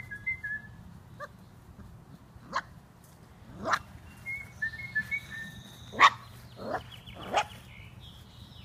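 Four-week-old Briard puppies yelping and whimpering: about five short, high cries, the loudest about six seconds in.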